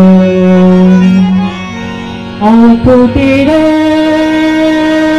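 Pahari Nati folk music with long sustained melody notes. It drops quieter about a second and a half in, then picks up again with a new held note that rises and steadies.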